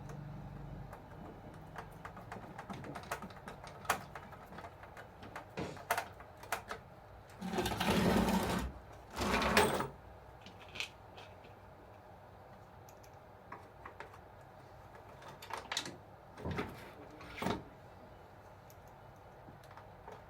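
Small parts clicking and tapping as a toy RC bulldozer is handled and worked on, with two short, louder noisy bursts about eight and nine and a half seconds in.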